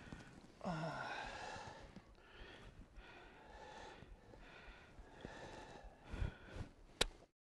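A man's low grunt or sighing breath, falling in pitch, about half a second in, then faint breathing and hiss. A few soft knocks and one sharp click come near the end, and the sound cuts out abruptly.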